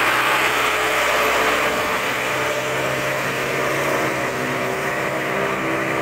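Bus passing close and pulling away uphill: its engine runs with a steady note under load, over tyre hiss on the wet road that is loudest in the first couple of seconds and eases as the bus moves off.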